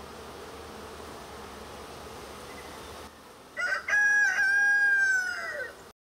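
Honeybees humming around an open hive box, then a rooster crowing once, loud, in one long call of about two seconds that falls away at the end.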